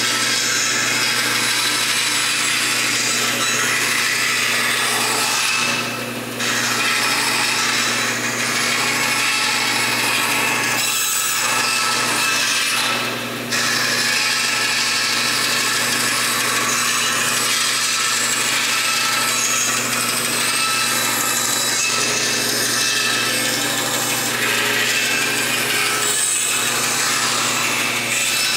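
Porter-Cable band saw cutting a sharp curve in a thin wooden board: the rasp of the blade through the wood runs continuously over the steady hum of the motor. The cut eases off briefly about three times as the board is backed out and brought in from another angle.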